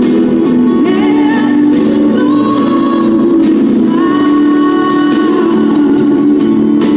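Christian worship song playing loudly: singing with long held notes over a steady accompaniment.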